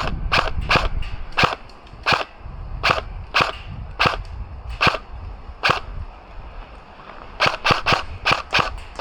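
Airsoft guns firing single shots: about ten sharp cracks spread over the first six seconds, then a quicker string of shots near the end.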